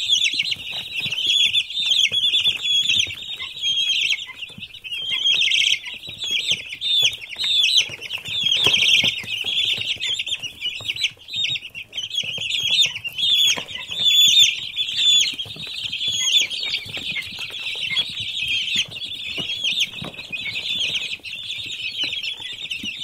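A brood of chicks peeping continuously, many short, high calls overlapping into a dense chorus.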